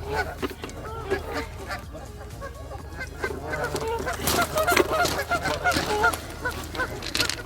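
A flock of geese honking, many overlapping calls throughout and busiest from about four seconds in, with a few sharp clicks among them.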